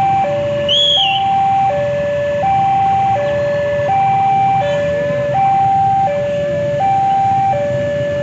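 Railway level-crossing warning alarm sounding for an approaching commuter train: an electronic two-tone signal alternating steadily between a higher and a lower note, each held for about two-thirds of a second. A short high chirp cuts in about a second in.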